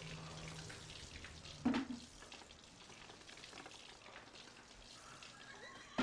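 Thick fake blood dripping and spattering off the soaked men, a dense crackle of many small drops, with one brief louder burst a little under two seconds in.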